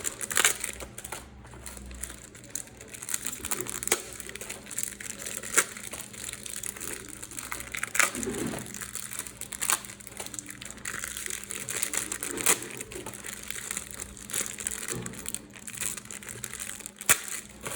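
Plastic trading-card packet wrappers crinkling and crackling as they are handled, with many irregular sharp crackles.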